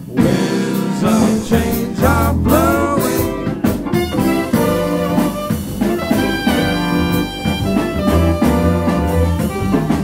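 Band music from the song: a lead melody line over a bass line and a steady beat.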